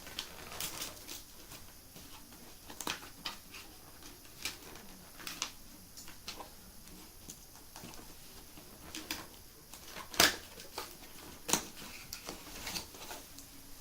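A cardboard retail box being opened by hand: scattered scrapes, taps and rustles of cardboard and packaging, with a sharper knock about ten seconds in and another shortly after.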